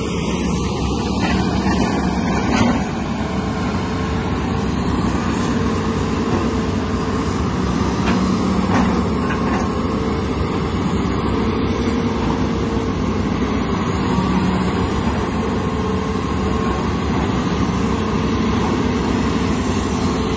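Komatsu excavator's diesel engine running steadily under working load, with a hydraulic tone that comes and goes as it works and a brief louder knock about three seconds in.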